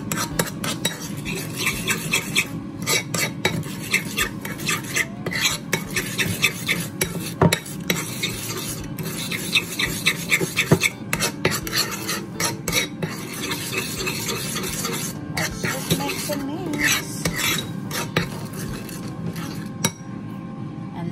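Metal spoon stirring and scraping a thick, creamy dressing in a ceramic bowl, with frequent irregular clinks of the spoon against the bowl.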